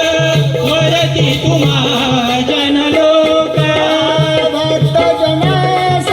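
Marathi shahiri folk music for a gan, an invocation to Ganesh: hand drums keep a steady beat under a sustained melodic line.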